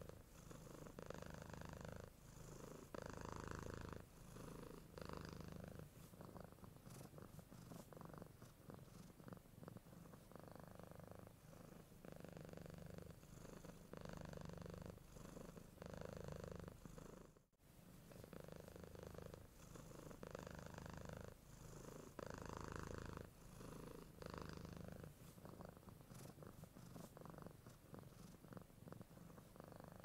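Domestic cat purring steadily and quietly, the purr swelling and easing with each breath in and out, with a brief break about halfway through.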